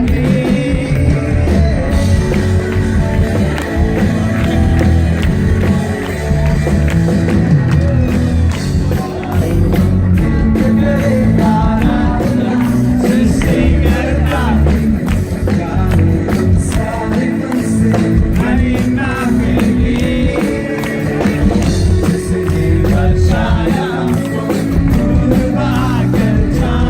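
Loud band music with a singer over a heavy bass line, heard from the front of the dance floor.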